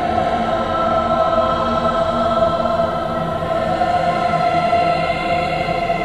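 Haunting choir singing long, steady held notes.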